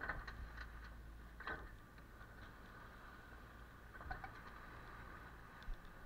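Faint sound of a sailboat under sail: water washing along the hull, with a few splashes as waves pass, over a low steady rumble.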